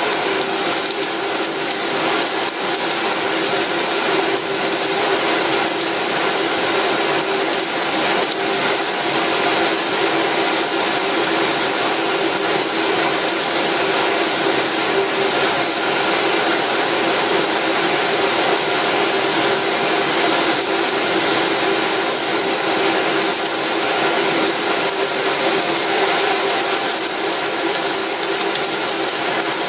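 Electric fan in a cardboard box running steadily with a constant hum, blowing air up through a metal sieve of green coffee beans that rattle and tick against the mesh as the loose parchment shells are winnowed out.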